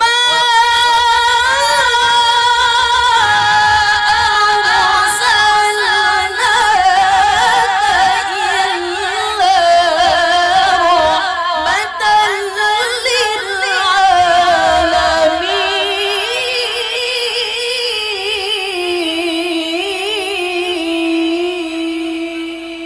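A woman's voice reciting the Qur'an in melodic tilawah style, drawing out one long ornamented phrase with trills. Its pitch steps gradually lower, and it fades near the end.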